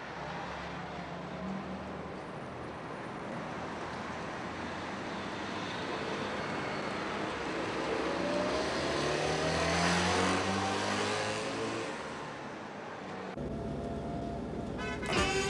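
Street traffic with car engines running. About eight seconds in, a car accelerates and its engine note rises, loudest around ten seconds in. Near the end the sound turns to a duller in-car hum, and music starts right at the end.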